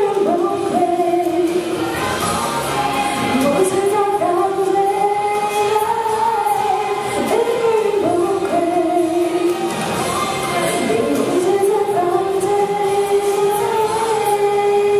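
A girl singing solo into a handheld microphone, a slow melody with long held notes.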